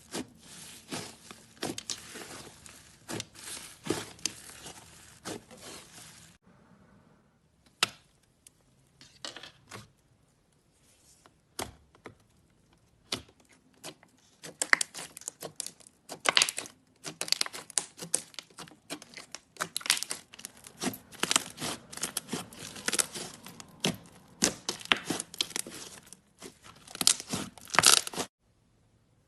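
Slime being squished and worked, crackling and crinkling. Dense runs of crackle open and close the stretch, with only scattered clicks for several seconds in the middle.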